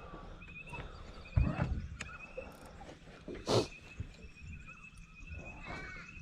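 A chorus of short, high chirping calls from small night animals repeats throughout. There is a low thump about a second and a half in, and a brief, louder rushing burst about three and a half seconds in.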